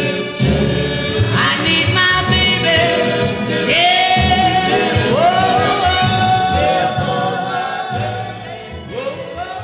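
Oldies pop/soul record with sung notes that slide up into long held tones over the band, and the music fading out near the end.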